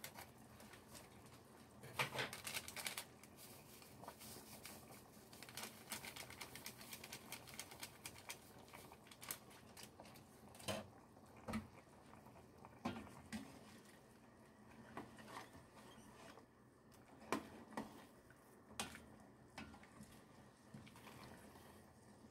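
Pork sinigang broth simmering in a pot: faint, irregular bubbling and small pops, with a cluster of pops about two seconds in and a few more scattered later.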